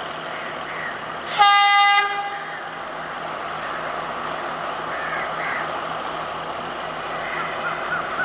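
Sri Lanka Railways Class S12 diesel multiple unit sounding its horn once, a short single-note blast about a second and a half in, over the steady running noise of the approaching train.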